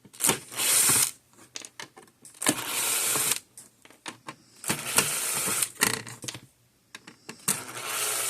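Screwdriver with a square Robertson bit backing out the screws that hold a scale indicator's circuit board: four short runs of about a second each, with small clicks and taps between them.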